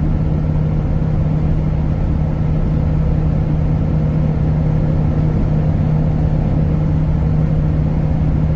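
Kenworth T360 concrete agitator truck heard from inside the cab at highway speed: engine and road noise making a steady drone with a constant low hum that does not change in pitch.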